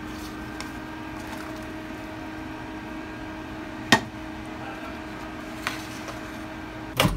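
Microwave oven running with a steady hum, with a sharp knock about four seconds in. Near the end the hum cuts off with a clunk.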